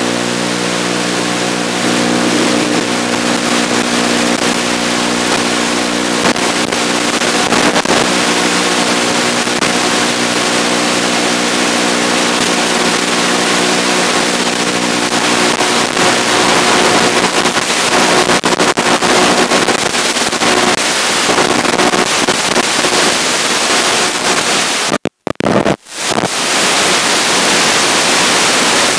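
FPV racing drone in fast flight: a steady, loud rushing hiss, with a steady hum of several tones through the first half. The sound cuts out briefly twice about 25 seconds in.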